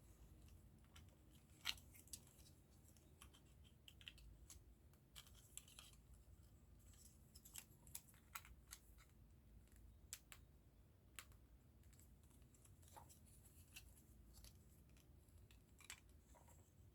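Faint, scattered clicks and taps of small plastic model-kit parts being handled and pressed together, a dozen or so at irregular intervals over quiet room tone.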